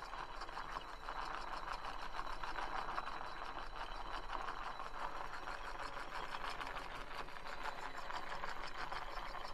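Homemade popsicle-stick electromagnetic motor running on 12 V DC, its coils, reduction gears and shaft spinning a CD propeller with a steady whir of rapid, even clicking and rattling.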